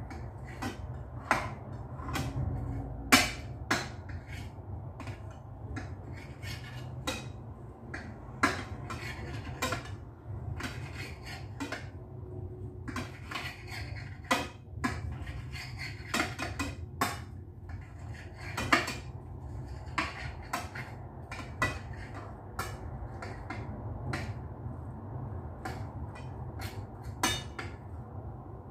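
Kitchen knife knocking on a cutting board in irregular cutting strokes, about one or two sharp knocks a second, over a steady low hum.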